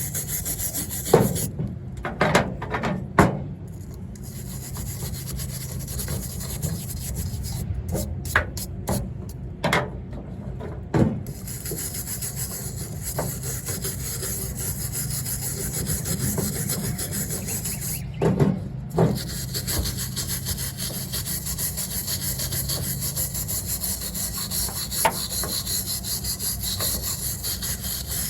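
Steady, rapid rubbing and scraping on the dry coconut shell of a bird nest as it is cleaned of dust and old material, with several sharp knocks in between.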